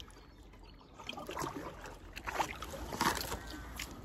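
Double-bladed paddle dipping into river water, stroke after stroke, with splashing and dripping off the blades starting about a second in.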